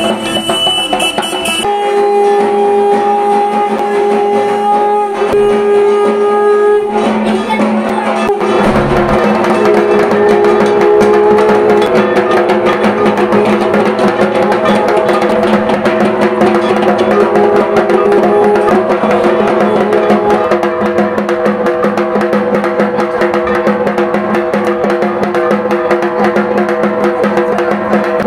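Music with drums: rapid, dense drumming under a few held tones, the drumming growing busier about seven seconds in.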